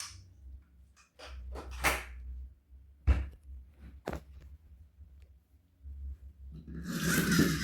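A toy and its packaging being handled: several light clicks and knocks, then a short noisy rustle near the end.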